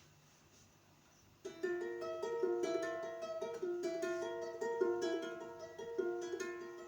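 A plucked string instrument begins picking a repeating pattern of ringing notes about a second and a half in, the song's intro, played with added reverb.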